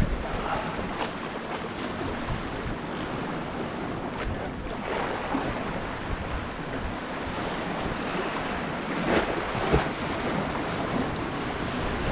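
Waves and surf washing steadily, with wind buffeting the microphone and a few faint knocks.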